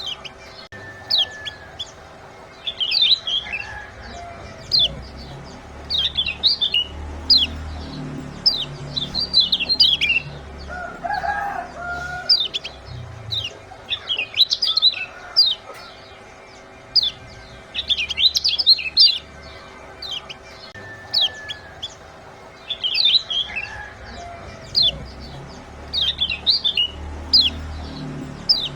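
Lemon-bellied white-eye (kecial kuning) giving its sharp 'ciak' call: quick clusters of high chirps repeated every second or two.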